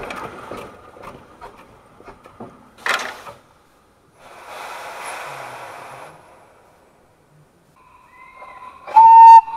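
A 12¼-inch gauge steam locomotive's whistle sounding a long steady note that starts faint about eight seconds in and becomes a loud blast about nine seconds in. Before it come scattered clicks, a short knock about three seconds in, and a hiss lasting about two seconds.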